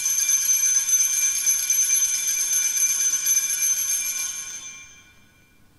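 Altar bells rung at the elevation of the chalice during the consecration: a bright cluster of high ringing tones that dies away about five seconds in.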